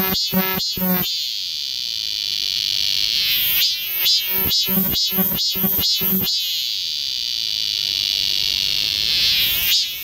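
Cicadas singing in a repeating call: runs of sharp pulses at about three a second, alternating with long, steady, high buzzes of two to three seconds each.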